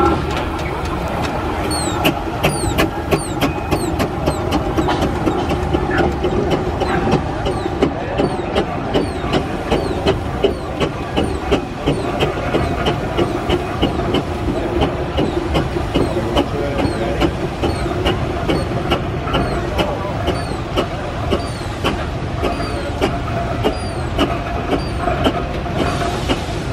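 Steam traction engines, a steam roller and then a crane engine, moving slowly past at walking pace. Their running gear gives a steady rhythm of sharp ticks, about four a second, with short falling squeaks, over a constant mechanical hum.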